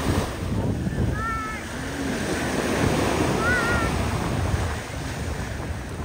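Small waves washing onto a sandy beach, with wind buffeting the microphone.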